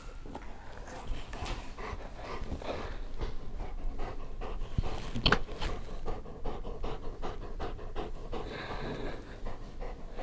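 Bernese mountain dog panting, a steady run of quick breaths, with one sharp knock about five seconds in.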